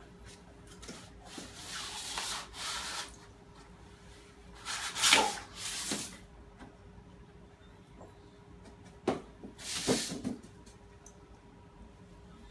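A sword's packing sleeve rubs and scrapes as it is worked and slid off the blade. The sound comes in three bouts, the loudest about five seconds in.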